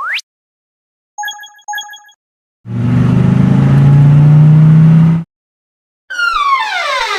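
A string of cartoon sound effects. It opens with a quick rising whistle, then two short ringing beeps. Next comes a loud, steady buzzing drone with a low hum that lasts about two and a half seconds, then a long falling whistle near the end.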